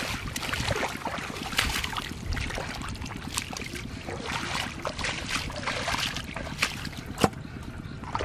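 Splashing and sloshing in shallow muddy floodwater as hands grab through it and bare feet wade, in many short irregular splashes, with a sharp knock near the end.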